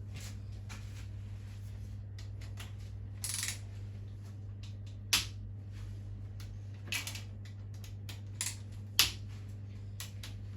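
Metal hand tools and engine parts clinking and knocking against each other, a handful of sharp clinks a second or two apart, the loudest about halfway through and near the end, while the big-end caps of a 1.3 engine are being undone. A steady low hum runs underneath.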